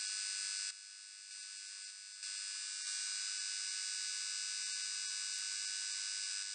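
Steady high electric buzz, like a flickering neon sign, played as a logo intro sound effect. About a second in it drops quieter, then comes back up loud after about two seconds and buzzes on until it cuts off.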